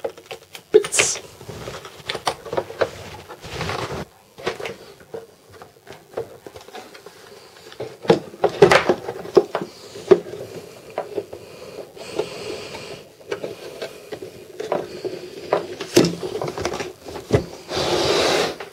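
A hard plastic battery box being handled and closed over its battery and wiring: scattered clicks and knocks of plastic parts and cable connectors, with a longer scraping rub of plastic near the end.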